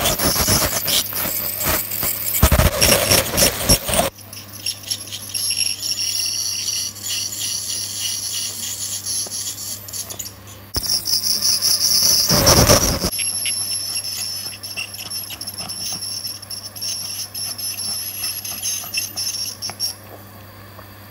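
Ultrasonic dental scaler working on a dog's teeth, giving a steady high-pitched whine over a low hum. A louder rushing hiss comes in the first four seconds and again about halfway through.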